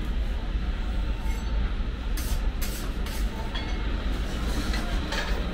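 Steady low rumble of a pizzeria's oven area, with a few short metallic clicks as a long metal turning peel is worked inside a wood-fired pizza oven.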